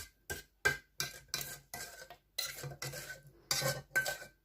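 A spoon stirring and scraping a thick chocolate, butter and honey mixture against the side of its container: a quick, irregular run of scrapes, several a second, with a faint ring from the vessel.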